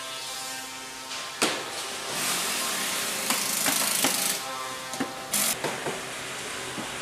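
Workshop clatter of wooden cable-drum assembly: scattered sharp knocks of wood and metal, with a steady hiss of compressed air from about two seconds in and a short air burst past five seconds.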